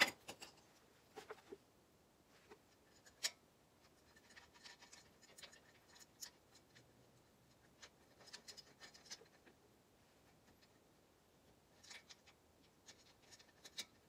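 2010 Dodge Grand Caravan's brake caliper being slid back over freshly installed brake pads: scattered light metal clicks and scrapes, with a sharp click at the start and another about three seconds in.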